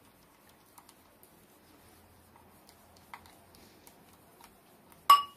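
Wire whisk stirring glaze in a bowl, with faint scattered ticks and a small click. About five seconds in, the whisk strikes the bowl in one sharp clink that rings briefly.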